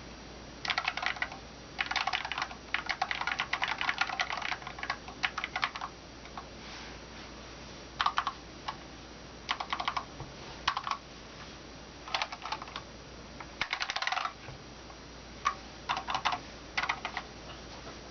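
Typing on a Cooler Master SK620 keyboard with Cherry MX Low Profile Red linear switches, stock and unlubricated. Fast runs of keystrokes fill the first six seconds, then come shorter bursts and single presses with pauses between them. The switches have a pinging ring that the owner calls severe.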